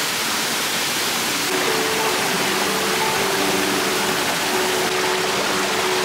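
Steady rushing of a small waterfall cascading over rocks. Soft held music notes come in faintly underneath about a second and a half in.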